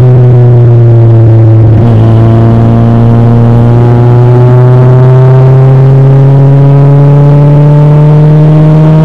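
Car engine heard from inside the moving car, running under load with a steady pitched note. The note sags slightly over the first couple of seconds, hitches briefly about two seconds in, then climbs gradually as the car accelerates.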